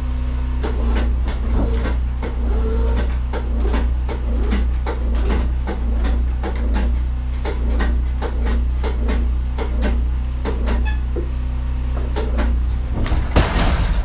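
Wood-Mizer LT15 sawmill's engine running steadily with a low hum, under a run of sharp, fairly regular knocks and clicks, about two to three a second, as a log is rolled over on the mill bed. A louder clatter comes near the end.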